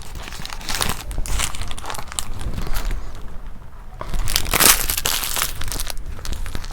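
Close-up crunching and crinkling of mukbang eating, with a quieter gap about three seconds in and a louder spell of crunching just after.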